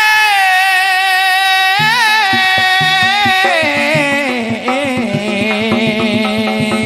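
A man sings through a microphone: a long high held note with wavering ornaments, then a melodic descent step by step to a low held note. Drum strokes join about two seconds in and keep a steady beat under the voice.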